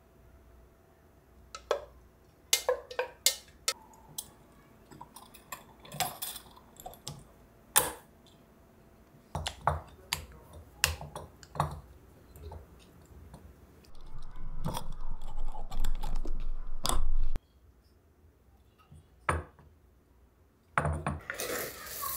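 Small glass clip-top jars being filled and sealed: a spoon scrapes the pot, glass clinks, and the wire-bail lids click shut one after another. Past the middle a steady noise runs for about three seconds and cuts off abruptly. Near the end coffee beans rattle in a glass jar.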